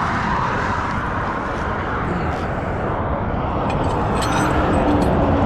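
Freeway traffic rushing steadily past, with a few light clicks about four seconds in.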